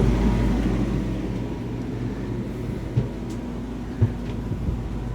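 Steady low hum of a Cruisair 16,000 BTU marine air conditioner running, with a couple of brief knocks about three and four seconds in.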